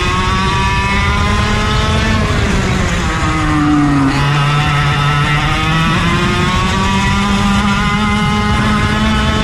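Racing kart engines running hard, more than one at once. Their pitch drops from about two to four seconds in as they slow for a corner, then climbs steadily again as they accelerate out of it.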